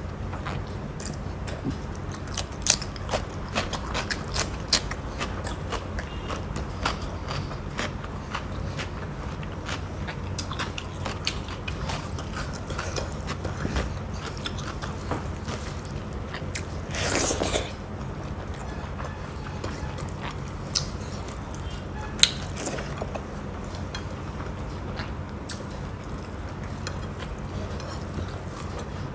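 Close-miked chewing and biting of a person eating rice and fish curry, with many small wet mouth clicks over a steady low hum. About seventeen seconds in there is a short, louder rush of noise.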